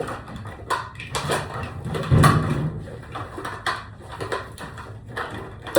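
Rummaging through skincare product containers: a string of small clicks and knocks as bottles and tubes are moved around, with one louder thump about two seconds in.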